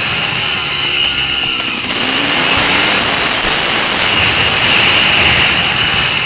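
Dirt bike engine running as the bike rides along a forest track, heard through heavy wind rush on the helmet-mounted microphone, the engine note changing pitch about two seconds in.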